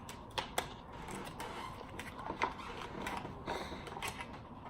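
Packaging being worked open by hand: scattered sharp clicks and ticks over a low rustling and scraping, as the packet holding a durag is pried and torn open.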